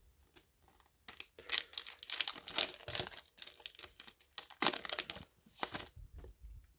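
Foil Yu-Gi-Oh booster pack wrapper being crinkled and torn open, in rustling bursts about a second in and again near five seconds.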